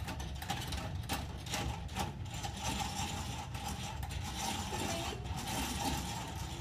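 Wall-mounted hand-crank pencil sharpener being cranked, its cutters grinding a pencil with a rapid, continuous rattling grind.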